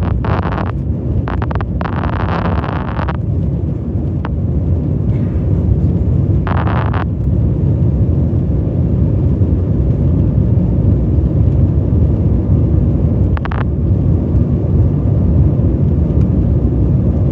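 Cabin noise of an Embraer 175 regional jet taking off: a loud, steady low rumble of its two General Electric CF34 turbofans and the rushing air. A few brief hissy bursts come in the first few seconds, again around seven seconds and near thirteen seconds.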